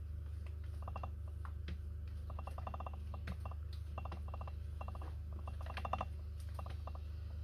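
Spatula scraping soap batter out of a plastic mixing bowl: clusters of quick, chattering clicks, several in a row each time, over a steady low hum.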